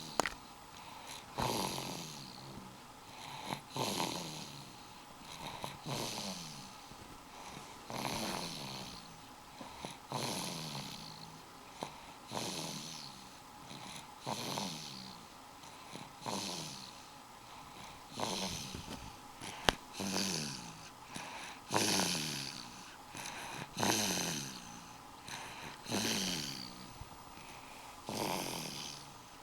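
A young child snoring in sleep, a steady series of snores about every two seconds, each one falling in pitch. One sharp click about two-thirds of the way through.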